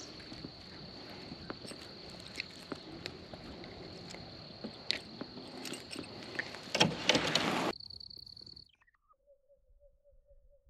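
Small clicks and rustles of a crappie being handled and unhooked in a kayak, over a steady high insect trill. A loud rustling spell comes near the end of the handling. Then the sound cuts to near quiet with a faint, evenly pulsing call.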